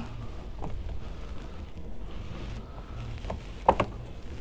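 Quiet cabin room tone with a steady low hum and a few light knocks, the clearest pair about three and a half seconds in, as a hand touches the stereo unit.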